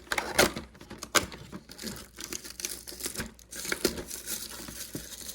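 Toy packaging being torn open and crinkled by hand, an irregular rustling with a few sharper crackles, the loudest about half a second and just over a second in.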